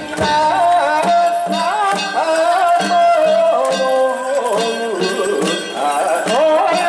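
Danjiri festival music: a wavering, sliding high melody over steady drum and bell strikes, about two a second.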